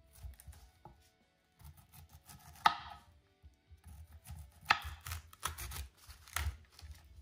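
Serrated knife cutting a cauliflower into florets on a wooden cutting board, with several sharp knocks as the blade hits the board.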